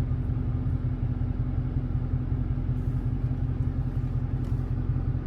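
Dodge Challenger Scat Pack's 392 Hemi V8 running, a steady low rumble heard from inside the cabin.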